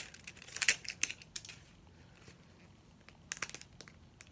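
A hard plastic Mini Brands ball capsule being pried at by hand: short clusters of plastic clicks and scrapes, once near the start, again about a second in, and once more past three seconds, with quiet gaps between.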